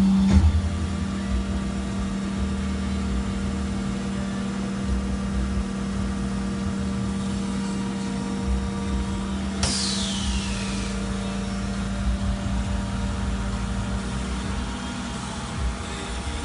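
HG-803R20t rotary high-frequency welding and cutting machine running with a steady hum and low rumble. About ten seconds in, a hiss sweeps down in pitch for about a second.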